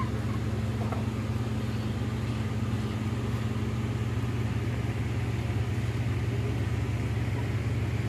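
Steady low mechanical hum, even and unchanging throughout.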